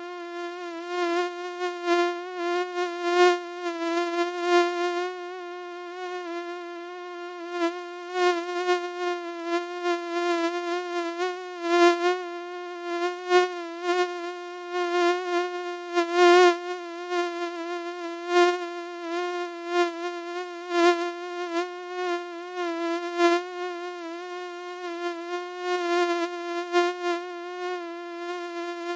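Mosquito in flight: a steady, high buzzing whine with many overtones that wavers slightly in pitch and keeps swelling louder and fading back at irregular moments.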